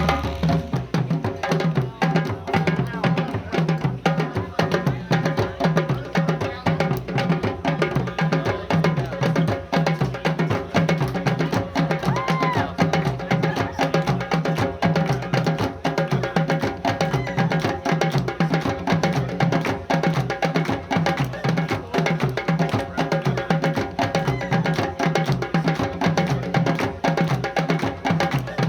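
Music carried by a fast, steady percussion beat of sharp clicking strikes over sustained low tones, starting abruptly at the opening.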